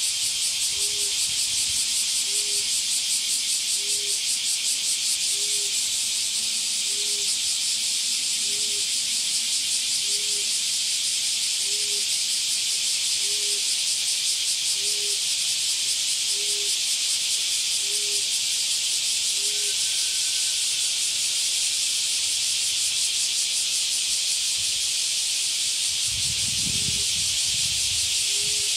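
Male common emerald dove giving its soft, low coo over and over, about one every second and a half, falling silent about two-thirds through and starting again near the end. A loud, steady, high insect drone runs underneath.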